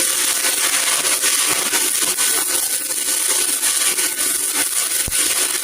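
Stick-welding arc from a 1/8-inch 7018 rod run at 125 amps on a Tooliom TL200 welder: a steady, even crackle.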